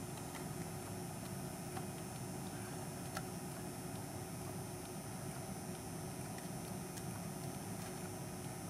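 Steady low background hum with a few faint ticks.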